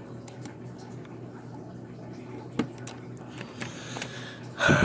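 Faint small clicks and scratches of fingers working a cable connector into an opened iBook G4 laptop, over a low steady hum, with one sharper click partway through. A loud rush of breath comes near the end.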